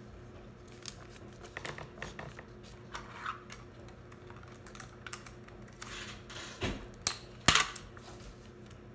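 Clear sticky tape being handled, pulled from its roll and torn off, with small clicks and crackles of tape and origami paper. There are two louder sharp rips near the end.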